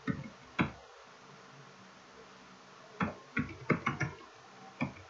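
Computer keyboard typing: sharp, separate keystroke clicks, two near the start, then a quick run of several about three seconds in and one more near the end.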